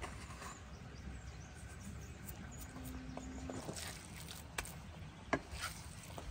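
Cleaver chopping and scraping minced meat on a wooden log chopping block. Quiet at first, then three sharp knocks of the blade on the wood in the second half, with short scrapes between them.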